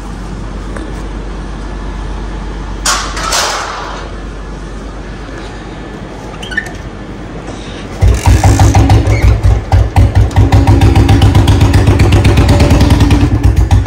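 Royal Enfield Bullet's single-cylinder engine started cold, catching about eight seconds in and then idling loudly with an uneven pulsing beat through its bend-pipe exhaust. Before it catches there is a steady low hum and a couple of short noises.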